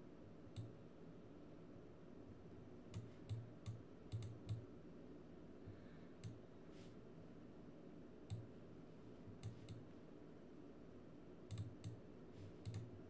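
Faint, irregular clicking of a computer mouse: about eighteen short, sharp clicks, some single and some in quick runs of two or three, over a near-silent room.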